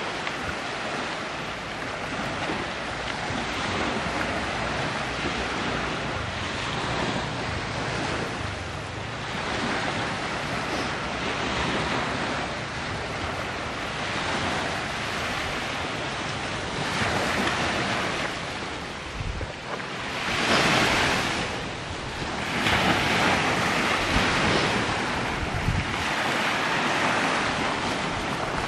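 Sea waves washing onto the shore, swelling and easing every few seconds with the strongest surges in the last third, with wind buffeting the microphone.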